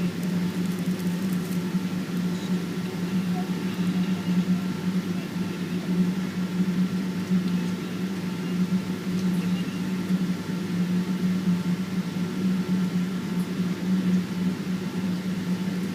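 Steady cabin drone of a Boeing 777-200ER, engine and air-conditioning noise heard inside the passenger cabin, with a constant low hum and fainter steady tones above it.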